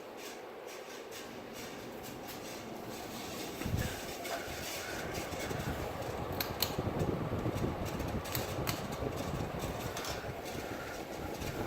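Windmere/CEI ceiling fan running on high speed, a steady whirring rush of air; its bearings are worn out, totally shot by the owner's account. About four seconds in there is a knock, and after it a low rumble grows louder.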